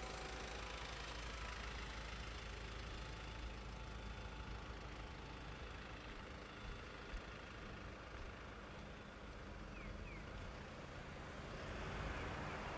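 Town street ambience: a steady low hum of road traffic with faint engine noise. A broad rushing noise swells near the end.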